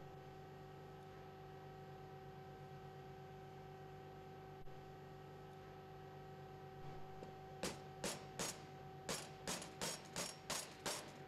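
A steady low hum, then from about seven and a half seconds in a run of sharp metallic taps that quicken to about three a second: the oil seal being tapped into the cargo pump's upper seal support through a steel driving jig.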